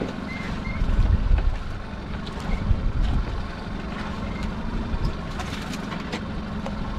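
Boat engine idling with a steady low hum, with gusts of wind on the microphone and a few light knocks as a crab pot is handled.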